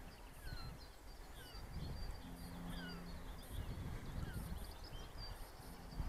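Wind buffeting the microphone in gusts, under songbirds singing short falling chirps and trills. A low steady hum sounds for about a second in the middle.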